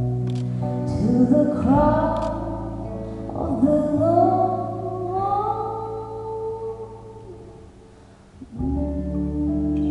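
A song with a woman singing drawn-out, gliding notes over guitar accompaniment. The music fades down, and a new sustained chord comes in about eight and a half seconds in.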